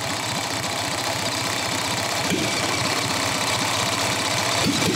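A gasoline engine converted to run on diesel fuel turning over on its starter, chugging steadily and trying to catch. It grows slightly louder.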